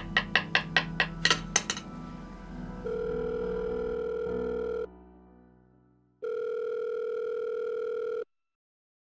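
Music with a regular clicking beat ends about two seconds in. Then a telephone ringing tone sounds in a phone earpiece: two long, steady two-second tones with a short gap between them, before cutting off abruptly.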